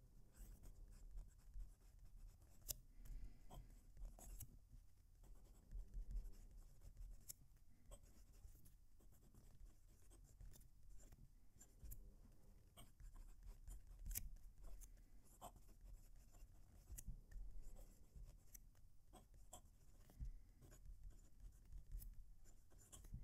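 Faint scratching of a Narwhal Key West Islamorada fountain pen's medium nib writing on smooth Oxford Optik paper, close to the mic, with small ticks as the nib lifts and touches down between strokes.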